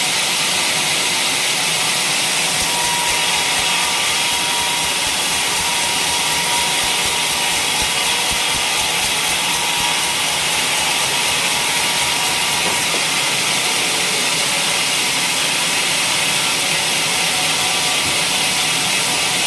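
Sawmill saw cutting waru gunung timber, a loud, steady noise that holds unchanged throughout.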